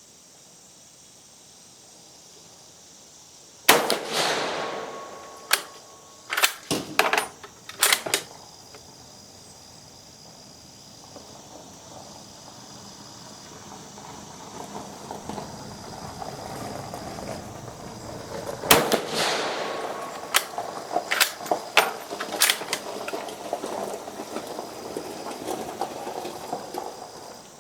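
Two rifle shots from a Carcano M91TS carbine in 6.5×52mm Carcano, about fifteen seconds apart, each ringing out briefly. After each shot come several short, sharp metallic clacks as the bolt is worked to eject and chamber the next round.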